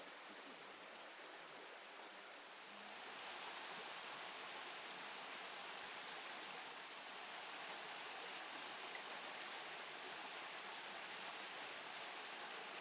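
Steady rushing noise of running water, a little louder from about three seconds in.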